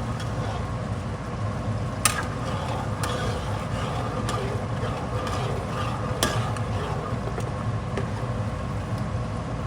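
A spoon stirring Hamburger Helper in a pan on the stove, scraping through the food with a few sharp clinks against the pan, over a steady hum.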